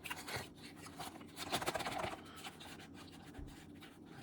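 Faint scraping and rustling of a cardboard package being opened by hand, its contents sliding out, with scattered small clicks.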